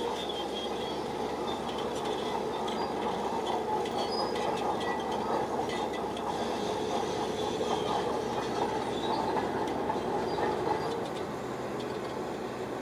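Shantui crawler bulldozer working, its diesel engine running steadily under load while the steel tracks clank and squeal.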